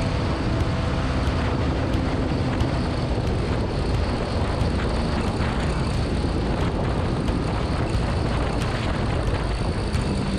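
Motorcycle on track at speed: its engine running steadily under load, mostly buried under heavy wind rushing over the microphone.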